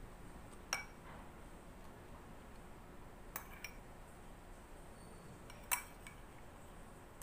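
Cutlery clinking against a dish while eating: three short ringing clinks, about a second in, midway, and the loudest near the end.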